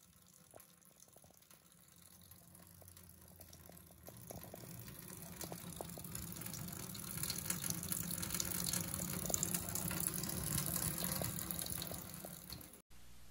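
Water running and splashing into a stainless steel sink from a wall-mounted kitchen mixing faucet whose body has cracked from freezing and is leaking. The sound builds from about four seconds in and fades just before the end.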